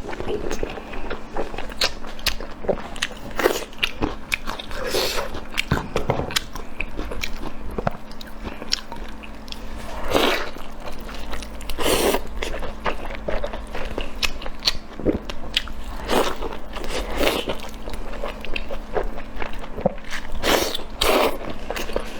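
Close-miked mukbang eating sounds: a person biting and chewing food, with frequent short crunches and mouth clicks and a few longer, louder bursts of crunching.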